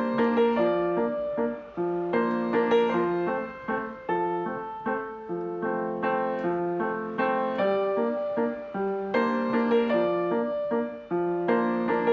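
Background piano music: a calm run of struck notes and chords with a steady pulse.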